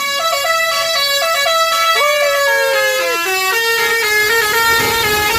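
Basuri 'telolet' multi-tone horn on a tour bus playing a quick melody of short changing notes, with one longer, slightly sliding note about two seconds in.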